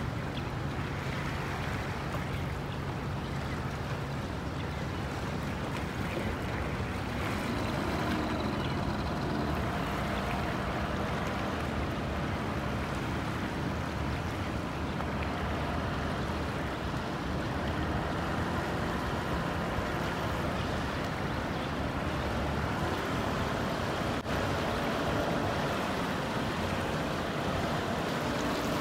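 Small fishing boat's engine running with a steady drone, over wind and water noise.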